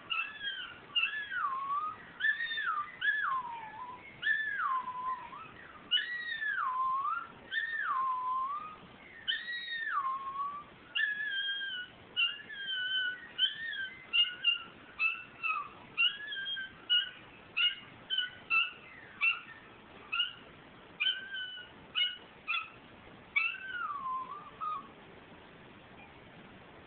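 Miniature Schnauzer howling: a run of long howls, each sliding down in pitch, then quicker, choppier short howls and yips that stop a couple of seconds before the end.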